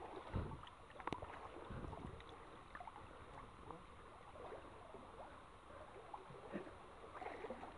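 Stream water sloshing and lapping around people wading chest-deep, with small splashes and a couple of low bumps in the first two seconds.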